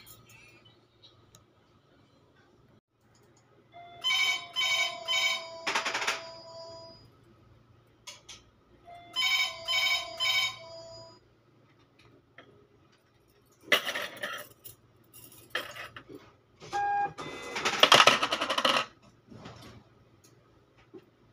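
A phone ringtone, a short run of repeated electronic tones, plays twice about five seconds apart. Later, gold bangles clink and jingle against each other as they are handled, loudest near the end.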